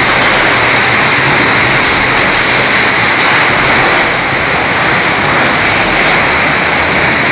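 A loud, steady rushing noise with no rhythm, knocks or voices in it.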